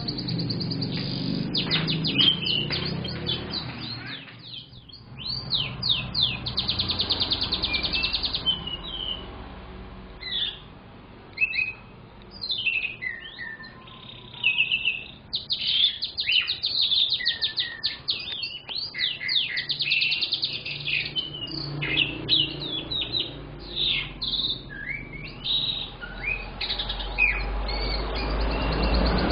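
Young domestic canary singing a long, lively song of rapid trills and quick sweeping whistled notes, with a brief pause about four seconds in.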